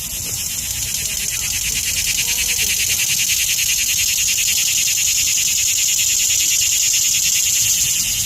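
Cicada calling: a loud, high, fast-pulsing buzz that builds over the first few seconds, then holds steady.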